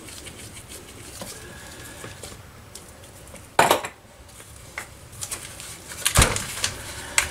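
Workbench handling noise while a Stihl 026 chainsaw's handle screw is taken out: faint clicks and rustling, one sharp clatter about halfway through, then a heavier thump near the end as the saw is turned over and set down on the bench.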